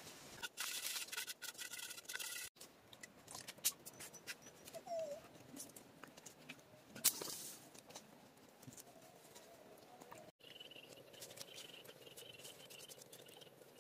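Faint, scattered clicks and taps from hands handling a whole fish and wooden sticks over the cooking fire, with one sharper tap about halfway through. A faint steady high tone comes in near the end.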